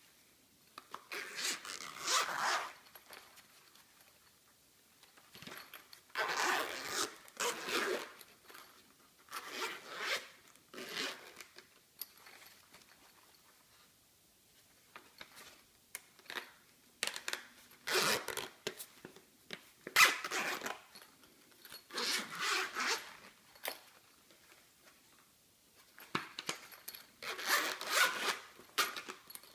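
Zippers of a three-compartment fabric pencil case being pulled open and shut: about nine separate zip runs, each a second or so long, with short pauses between.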